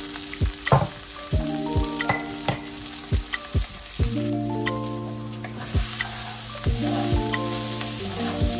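Background music with a steady beat over chopped onions sizzling as they fry in oil in a pan.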